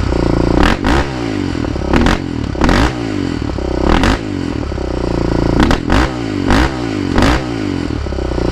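Yamaha Raptor 660 ATV's single-cylinder four-stroke engine being revved in about eight or nine quick throttle blips over a steady idle. The revs fall back slowly between blips, a hanging idle that the owner puts down to carburettor tuning.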